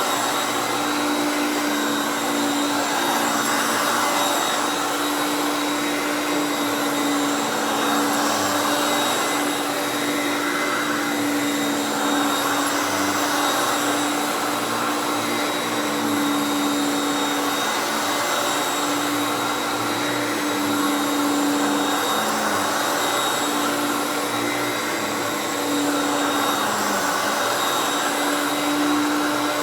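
Hoover Concept One U3101 Power Drive upright vacuum running, its 5.6-amp direct-air motor giving a steady hum over a continuous rush of air.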